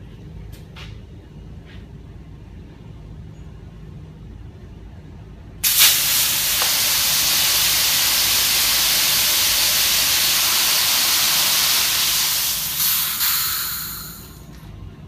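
Nitrous oxide blasting out of a nitrous kit's four open nozzle lines during a flow test: a sudden loud hiss starting about five and a half seconds in, holding steady for about seven seconds, then tapering off and dying away near the end. Some of the line fittings are not tight and leak during the spray.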